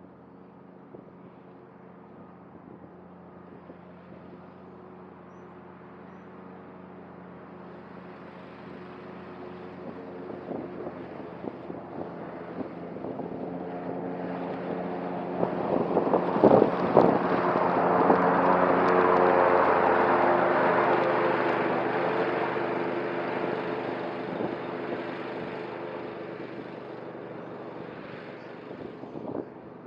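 Cub Cadet ZTS1 zero-turn mower running and cutting tall grass and weeds, growing louder to a peak a little past halfway and then fading as it moves across the field. A few sharp clicks come near the loudest point.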